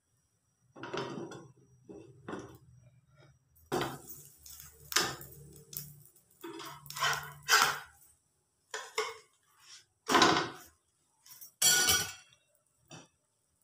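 Cookware clinking and clattering in a series of separate knocks, as a metal turner and a glass lid are handled against a frying pan. The two loudest clatters come near the end.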